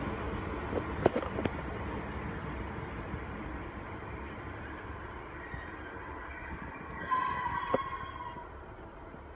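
Class 150 diesel multiple unit pulling away, its diesel rumble fading steadily as it goes. A couple of sharp clicks about a second in, and a brief wheel squeal near the end.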